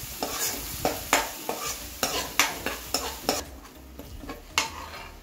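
Green chilli, ginger and green garlic paste sizzling in hot oil in a non-stick kadhai while a spoon stirs and scrapes it, about two strokes a second. The sizzle thins after about three seconds.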